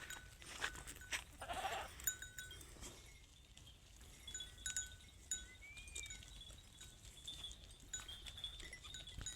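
Goats in a farmyard, quiet, with one brief faint bleat about a second and a half in, among scattered light clicks and faint high tinkling.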